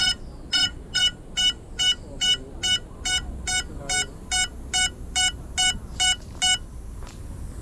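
FPV quadcopter's buzzer giving short, evenly spaced beeps, about two and a half a second, that stop about six and a half seconds in. This is the lost-model alarm of a drone lying on the ground after a crash.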